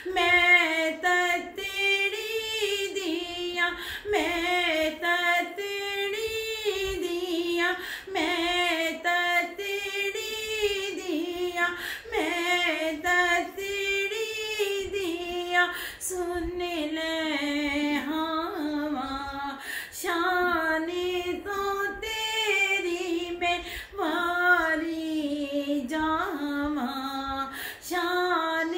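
A woman singing a naat solo and unaccompanied, in phrases of about two seconds with a wavering, ornamented melody.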